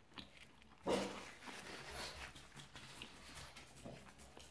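A pug's sudden loud snort about a second in, trailing off over the next two seconds.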